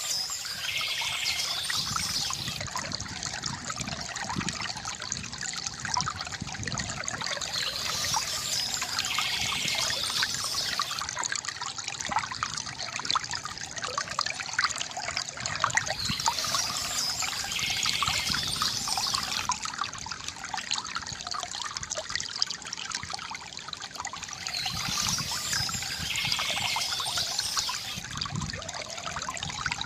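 Stream water trickling steadily, with high-pitched birdsong returning about every eight seconds.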